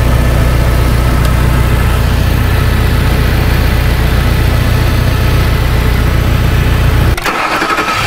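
2003 Ford Thunderbird's 3.9-litre V8 engine being started: a steady low engine sound that changes abruptly, dropping away about seven seconds in.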